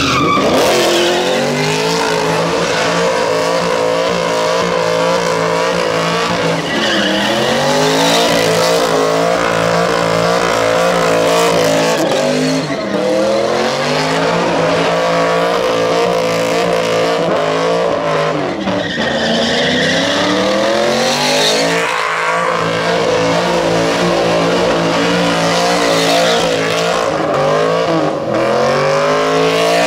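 Holden Commodore in a burnout: its engine is held at high revs while the rear tyres spin and screech on the pad, the revs dropping away and climbing back about five times.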